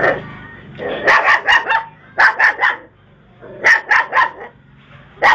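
A dog barking in quick runs of three or four barks, with short pauses between the runs.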